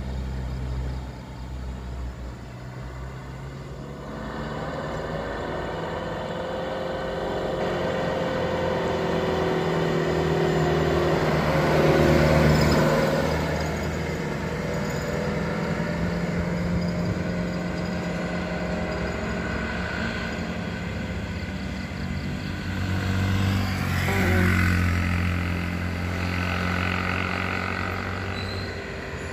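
Truck diesel engines pulling hard at full throttle up a steep bend, the pitch rising and falling as they work. One truck passes close and is loudest about twelve seconds in, and another swells up around twenty-four seconds in as it approaches.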